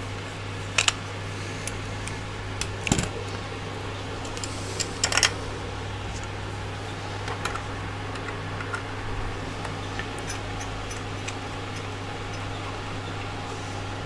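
Hand tools and small printer parts being handled on a workbench: a few sharp clicks and knocks about 1, 3 and 5 seconds in, then lighter ticks, over a steady low hum.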